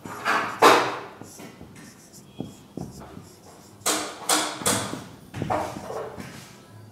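Marker pen writing on a whiteboard: a run of short scratchy strokes, loudest about half a second in and again around four seconds in.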